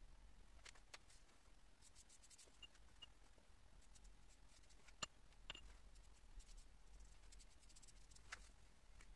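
Faint, scratchy strokes of a calligraphy brush dragging and dabbing sumi ink on paper, with a few small clicks, the sharpest about five seconds in.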